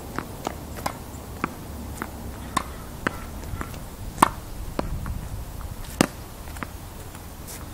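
Tennis ball being hit with a racket against a practice backboard wall: a string of sharp pops from racket strikes, the ball hitting the wall and bouncing on the hard court. The two loudest hits come about four and six seconds in.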